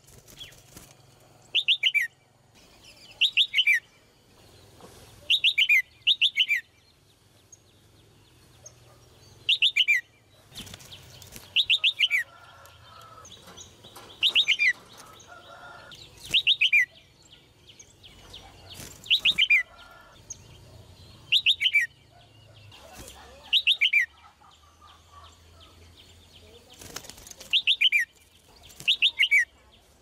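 Red-whiskered bulbul calling again and again: about a dozen short bursts of quick falling notes, one every two seconds or so, with wing flutters and hops in a wire cage.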